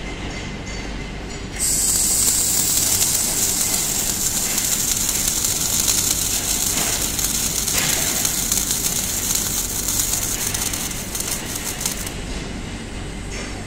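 Automatic MIG welding of a pallet racking beam, with two torches arc-welding both ends at once: a loud, steady sizzling hiss that starts suddenly about a second and a half in and stops about two seconds before the end. A steady low background hum runs underneath.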